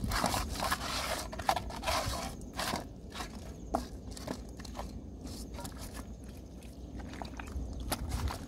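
Raw daikon pieces scraping and knocking against a metal pan as hands arrange them: irregular scrapes and soft clicks, busiest in the first few seconds, over a low steady rumble.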